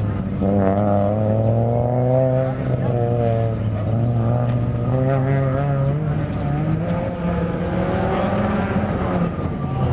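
Turbocharged Volvo 850's five-cylinder engine revving up through about four hard pulls, each rising in pitch for a second or two and dropping back as the driver lifts between cones.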